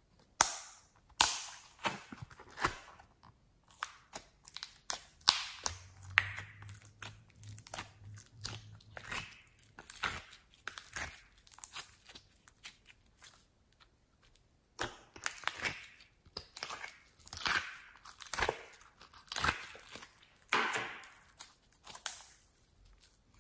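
Floam (foam-bead slime) crackling and crunching as hands pull it out of a plastic case and squeeze it, in irregular clusters of sharp crackles, with a pause of a couple of seconds about halfway through.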